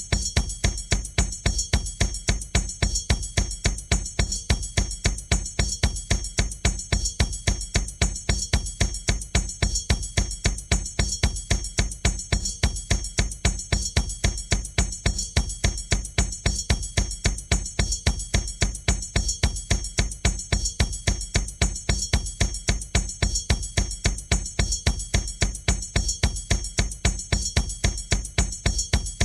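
A drum-kit loop: deep bass-drum strikes repeating in a steady, even beat, with a bright high cymbal-like shimmer over them.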